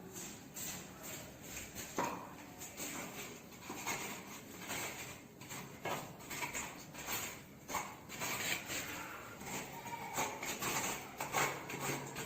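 Repeated, uneven scraping and rubbing strokes with light clinks, the sound of hand work with hard tools.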